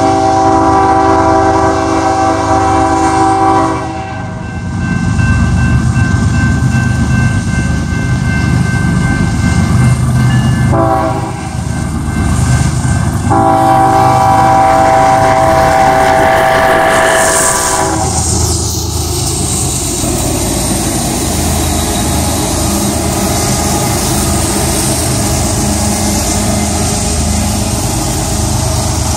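BNSF freight train's diesel locomotive sounding its multi-chime air horn for a grade crossing: three blasts, the second shorter, the last ending about 18 seconds in. Then the locomotives' diesel engines and the freight cars' wheels rumble steadily as the train rolls past.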